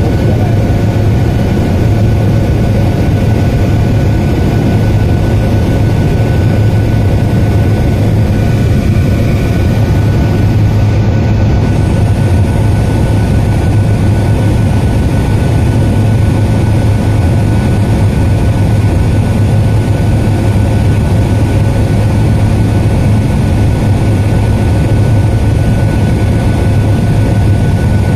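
Airliner cabin noise during the descent to land: a steady drone of engines and airflow with a strong low hum and a thin, steady whine above it.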